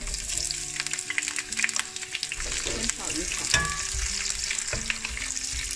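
Shredded onion, ginger and Sichuan peppercorns sizzling in hot oil in a wok. The sizzle starts suddenly as the onion goes in, and a wooden spatula stirring and scraping through the pan adds clicks.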